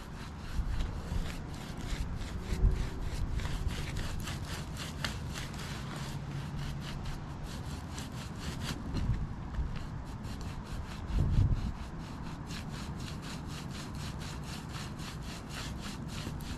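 A brush swept in quick, even strokes over asphalt roof shingles, clearing grit and debris from the area under a removed wind-damaged shingle, about three strokes a second. A couple of low bumps stand out, one about eleven seconds in.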